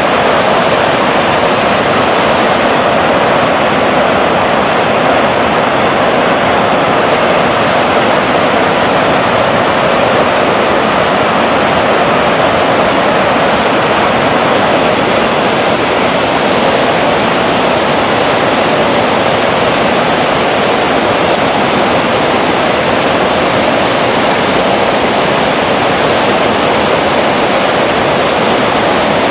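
Whitewater river rapids rushing over rock ledges, loud and steady.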